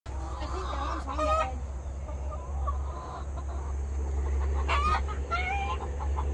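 Chickens clucking: short pitched calls about a second in and again a couple of times near the end, over a steady low rumble.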